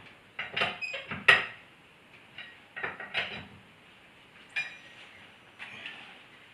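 Metal tools and hardware from a tyre change clinking and knocking irregularly, some strikes ringing briefly. The loudest knock comes about a second in.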